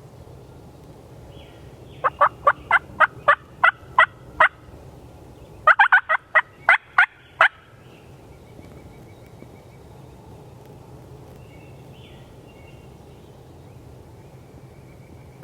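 Turkey yelping in two loud runs of short, sharp notes. The first run is about nine evenly spaced yelps. About a second and a half later comes a second run of about eight, quick at first and then spacing out.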